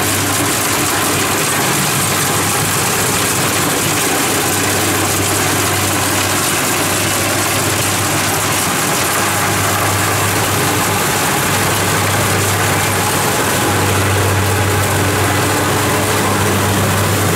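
Kubota DC-70 Plus combine harvester running steadily while harvesting rice: its diesel engine gives a constant low hum under a wide hiss from the machinery.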